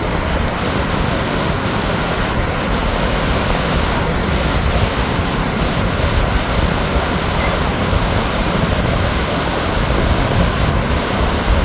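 Strong gale-force wind blowing across the microphone: a steady, loud rushing noise with a heavy low rumble.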